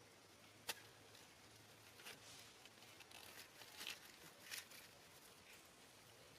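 Near silence with faint rustling and soft scratchy noises, and one sharp click a little under a second in.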